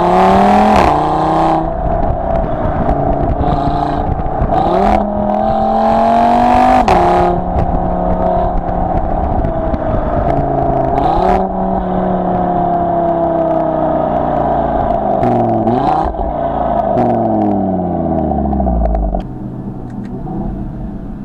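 The 2017 Audi TT RS's engine and sports exhaust under hard driving. Its pitch climbs and drops again and again through gear changes, with a few sharp cracks in the first half and quick rev blips about 11 and 16 seconds in.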